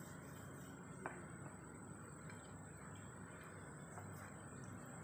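Faint room noise with one sharp click about a second in and a few softer ticks.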